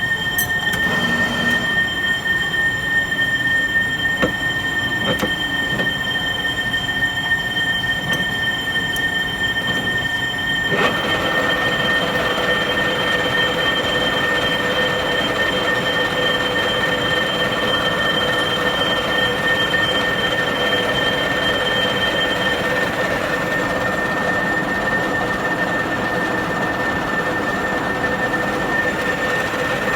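A 16K20 screw-cutting lathe running while cutting a thread: a steady high whine, and about eleven seconds in the sound turns louder and rougher, with a lower tone added.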